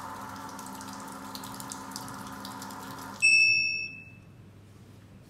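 Hydrogen inhalation machine's auto-drain pump running steadily as it pumps the leftover water out, then cutting off suddenly about three seconds in with a single high electronic beep from a touch-panel button.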